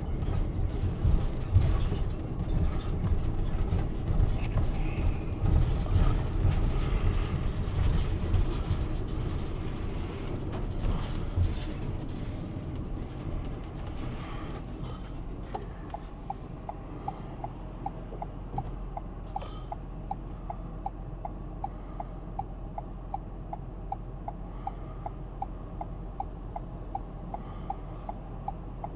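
Low rumble of a vehicle moving, heard from inside the cabin, easing off about halfway through; then a vehicle's turn-signal flasher starts ticking steadily, about two to three clicks a second.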